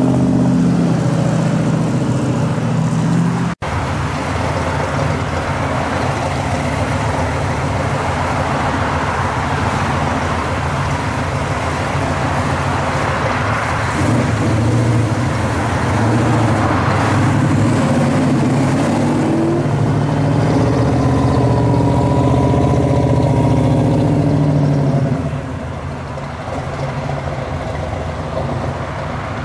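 Several classic American muscle cars driving past one after another, each engine's exhaust note running steadily as it passes. The sound changes abruptly about 3.5 s in and again near the end, where it gets a little quieter.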